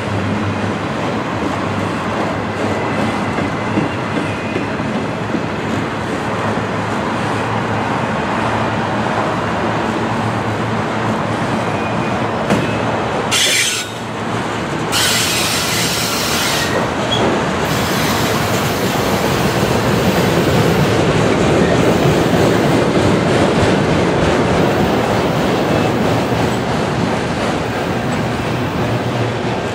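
A long string of loaded autorack freight cars rolling past: a steady rumble of steel wheels on the rails, with a brief high-pitched hiss twice around the middle and the noise swelling a little in the second half.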